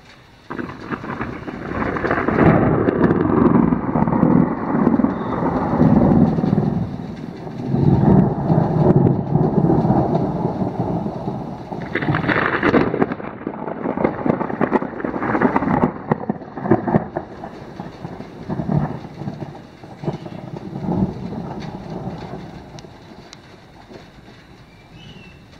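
A long roll of thunder that breaks in suddenly about half a second in, rumbles on with several swells in loudness, and slowly fades away near the end.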